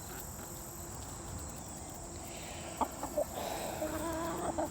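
Chickens clucking softly, with a few short calls and a longer held, wavering note in the second half.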